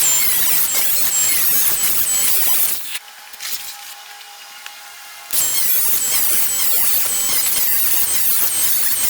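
Cutoff tool with an abrasive wheel cutting sheet steel from an old refrigerator, a harsh high squealing grind. It cuts for about three seconds, stops for about two and a half seconds, then cuts again from about five seconds in.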